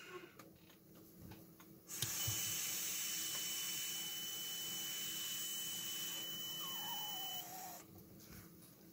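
A DIY Arduino breathalyzer's buzzer gives a steady high-pitched beep over the hiss of breath blown through a straw onto its MQ-3 alcohol sensor. Both start about two seconds in. The beep cuts off after about five seconds, which signals that the breath sample is finished.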